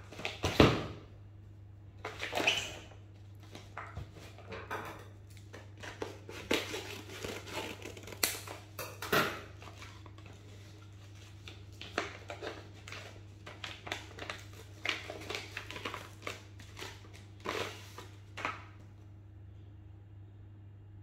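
Phone retail box and its cardboard and paper packaging being handled and opened: irregular rustling, crinkling and light taps, with a louder knock just under a second in, stopping about 19 seconds in.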